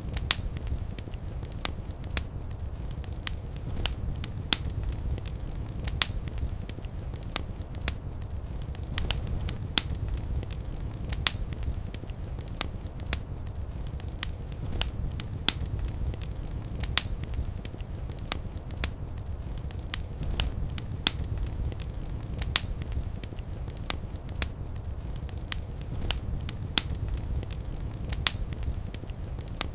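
Wood fire burning in a fireplace: a steady low rumble with irregular sharp crackles and pops, several a second.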